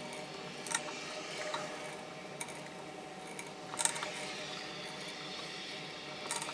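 Hand tap being turned in a tap guide, cutting threads in a 4140 pre-hard steel block: faint scraping with a few light metallic clicks.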